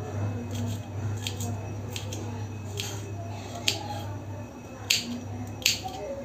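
Small knife slicing through raw garlic cloves, the blade striking a stone surface in a series of sharp, irregular clicks, the three loudest in the second half.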